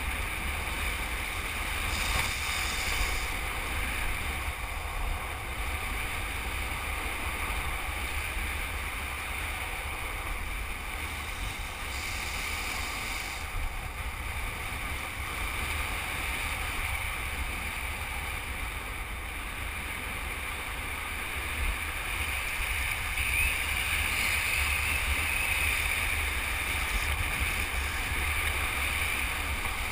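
Wind buffeting the microphone of a camera riding down a hill at longboard speed, a steady low rush over the rolling roar of polyurethane longboard wheels on asphalt. It grows a little louder about two-thirds of the way through.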